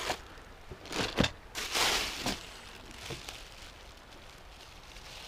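Handling noises: a few short clicks and knocks, with a brief crinkling rustle about two seconds in.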